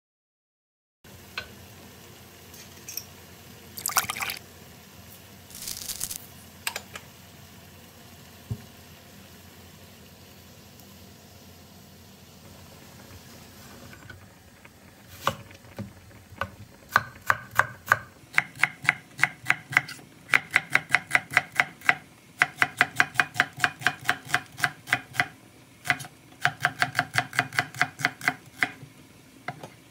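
Knife chopping quickly on a cutting board, about five strokes a second, in several runs with short pauses. Before it come a few brief rustling or splashing noises.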